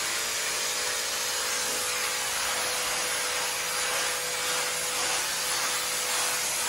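Sun Joe 3200 electric pressure washer spraying a high-pressure jet of water onto concrete: a steady hiss of the spray striking the surface, with a faint steady hum underneath.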